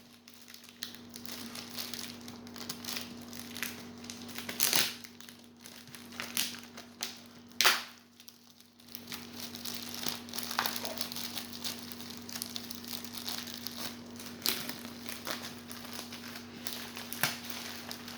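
Plastic book packaging being crinkled and pulled open by hand, a steady crackling with a few sharper, louder crackles about 5 and 8 seconds in.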